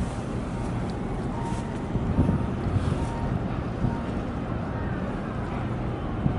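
Wind buffeting the microphone: a steady low rumble with small gusts, over faint harbour noise.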